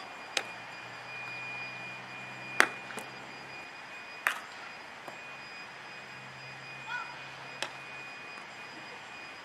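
Sharp smacks of a softball being caught in leather fielding gloves, about six in all, the loudest about two and a half seconds in. A faint high steady tone and a low hum sit underneath.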